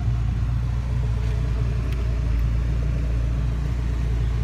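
1986 Porsche 944 Turbo's turbocharged 2.5-litre four-cylinder idling steadily through its B&B exhaust, a low even rumble.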